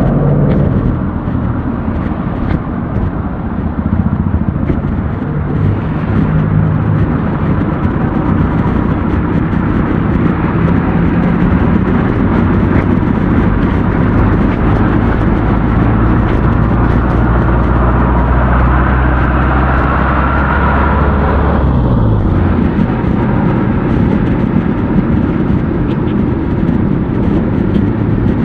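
Road traffic close by: motor vehicle engines running with a steady low hum over road noise. The hum shifts and breaks off about 22 seconds in.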